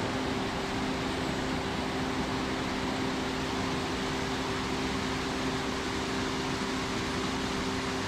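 Steady rushing white noise of a waterfall's tumbling water, with two steady low hum tones running through it.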